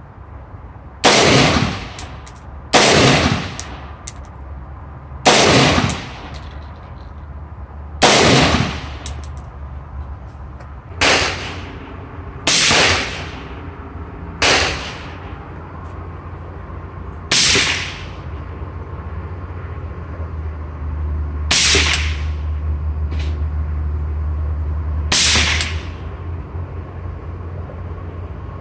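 AR-15 chambered in .300 Blackout firing hand-loaded rounds: ten single shots at uneven intervals of about one and a half to four seconds, each with a short fading echo.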